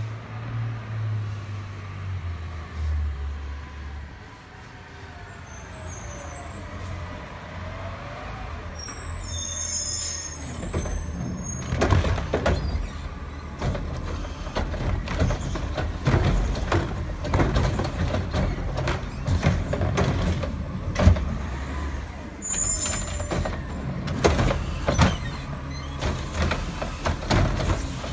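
Diesel front-loader garbage truck running as it pulls up, with a few high squeals as it stops. Then its carry-can arm grabs and tips a yard-waste cart, with loud repeated clanks and bangs of the cart and arm over the engine.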